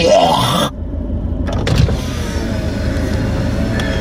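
Car engine idling, heard from inside the cabin as a steady low rumble. A brief rising sound plays at the very start.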